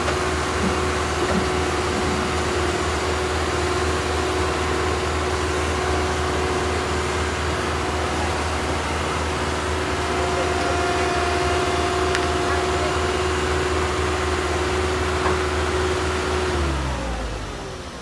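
Caterpillar CS533E vibratory roller's diesel engine running steadily under load as the machine drives up onto a truck deck, with a constant whine over the engine note. About a second before the end the pitch falls and the sound goes quieter as the engine throttles back.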